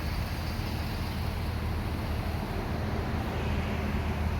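Steady low rumble of a vehicle engine running, even in level throughout.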